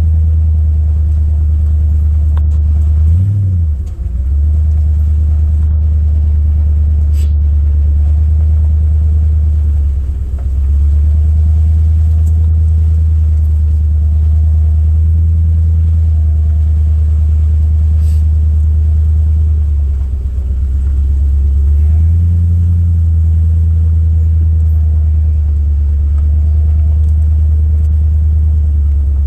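An engine running steadily at idle, a loud low rumble that dips briefly a few times.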